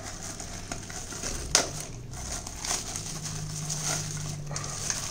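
Thin plastic packaging bag crinkling as it is handled and pulled off a blender's motor base, with one louder crackle about one and a half seconds in.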